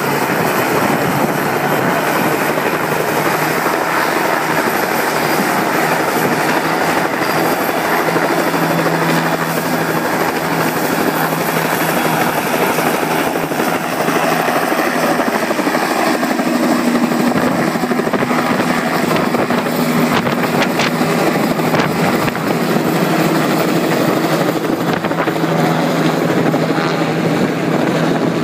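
Firefighting helicopter with a monsoon bucket slung beneath it flying low overhead, its rotor and engine running steadily and loudly.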